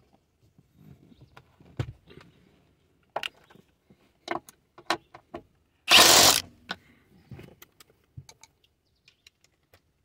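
Cordless drill-driver briefly spinning a socket, about half a second near the middle, driving in a seat belt retractor's mounting bolt. Scattered clicks and knocks of the belt, bolts and tool being handled come before and after it.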